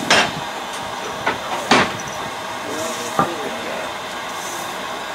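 Steam tank locomotive (Southern Railway E762 'Lyn', a replica Baldwin 2-4-2T) standing and hissing steadily, with a few sharp knocks, the loudest near the start and just under two seconds in.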